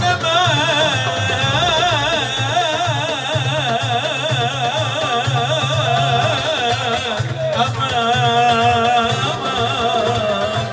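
A cantor singing high, long-held notes into a microphone in Middle Eastern style, his pitch wavering in quick ornamental turns, over oud and keyboard accompaniment with a pulsing low beat.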